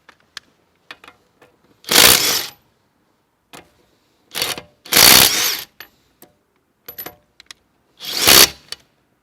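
Cordless brushless impact driver hammering in three short bursts, undoing car wheel lug nuts, with light metallic clicks of a socket being handled before the first burst.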